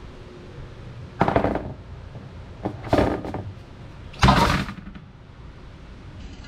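Metal baking tray of toasted eggshells clanking against a wooden table three times as it is set down and shifted, about a second and a half apart, the last knock the loudest.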